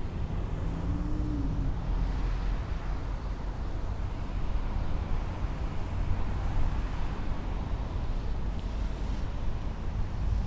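Street traffic: a steady low rumble and hiss of passing cars.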